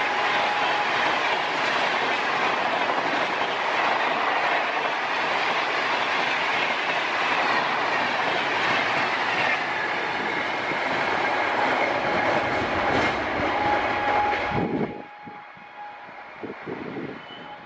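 Rajdhani Express coaches passing close by at about 130 km/h: a steady rush of wheel and rail noise with clickety-clack over the rail joints. About fifteen seconds in it cuts off suddenly, leaving a much quieter background with a few low thumps.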